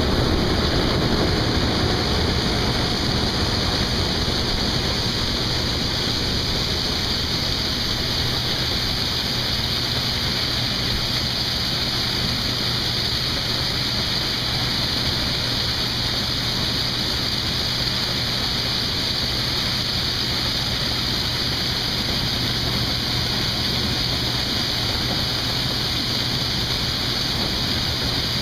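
Case IH 2588 combine harvester running steadily while harvesting corn: a constant dense hiss with a steady low hum underneath.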